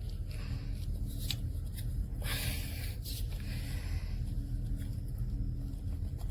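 Light handling noises, a few soft clicks and a brief scrape about two and a half seconds in, over a steady low hum.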